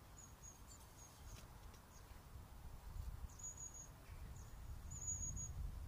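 Thin, high-pitched bird calls: a few short notes and two longer ones about three and a half and five seconds in, over a low rumble of wind on the microphone that grows toward the end.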